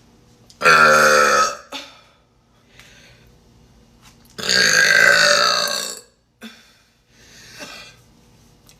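A person burping loudly twice: a belch of about a second starting just over half a second in, and a longer one of about a second and a half a little past four seconds in, with another beginning right at the end.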